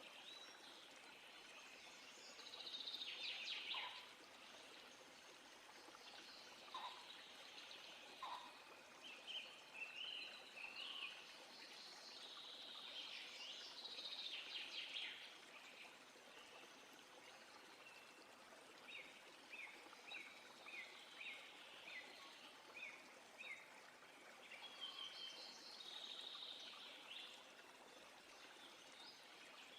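Faint birdsong from several small birds: warbled phrases and short chirps, with a run of quick repeated chirps about two-thirds of the way through. Under the birds there is a steady soft hiss.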